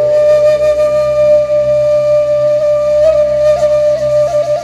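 Background music: a woodwind holding one long note, with quick ornamental turns in the last second and a half, over a steady low drone.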